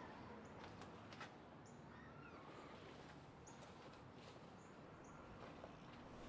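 Near silence: quiet room tone with faint, short, high bird chirps now and then.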